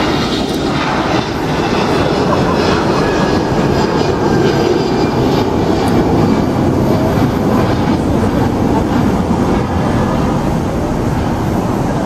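Jet engine noise of a Eurowings Airbus A320-family airliner, with CFM56 turbofans, climbing out after takeoff. A steady, loud, deep rumble that holds level as the jet climbs away.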